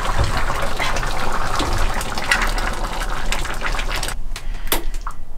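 Pan of lentil soup bubbling on a gas hob: a steady, watery hissing noise with small pops that stops abruptly about four seconds in, followed by a couple of light clicks.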